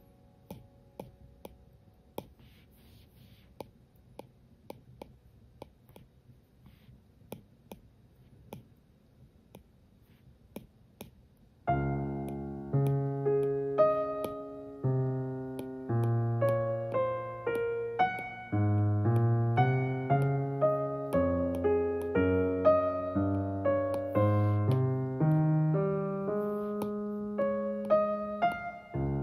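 Solo piano background music that comes in abruptly about twelve seconds in and plays on in a flowing run of notes. Before it, only faint clicks, roughly one or two a second, over a low hush.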